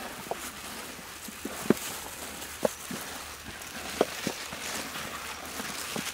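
Plastic-gloved hands mixing chicken legs in batter in a metal bowl, with a few sharp knocks as the pieces and hands strike the bowl.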